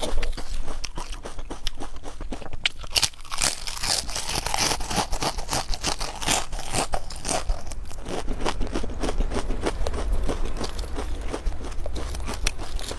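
Potato crisps crunching loudly as they are bitten and chewed, a dense run of irregular crackles that is thickest a few seconds in.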